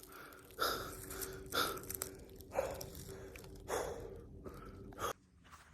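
A person walking along a trail, steps about once a second, with breathing heard between them.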